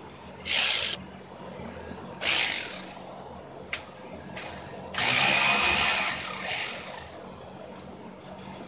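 Ratchet with an 8 mm socket spinning bolts out of the car's front radiator support, in three bursts: a short one, one of nearly a second, and a longer one of about two seconds.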